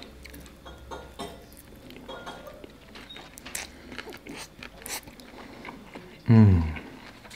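A person eating spaghetti: chewing and mouth smacks with small clicks of a metal fork against a plate. About six seconds in comes one loud, short 'mmm' that falls in pitch.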